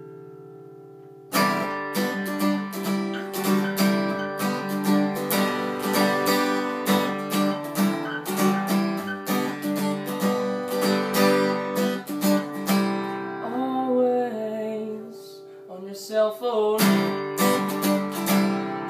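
Steel-string acoustic guitar strummed in a steady rhythm, opening on a ringing chord that fades before the strumming starts. About two-thirds of the way through, the strumming stops for a few seconds under a soft wordless vocal, then picks up again.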